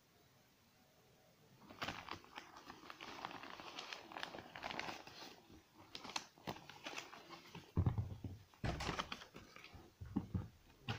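Plastic mailer bag crinkling and rustling as a cardboard shaver box and a paper slip are pulled out of it, with many small clicks. Near the end come a few dull thumps, the loudest sounds, as the box is handled and set down.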